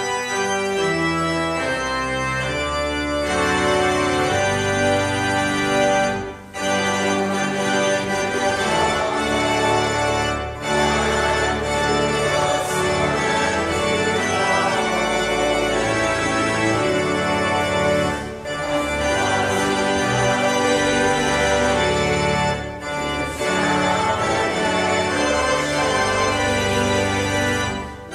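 Church organ playing full, sustained chords with a moving bass line, in phrases separated by a few brief breaks.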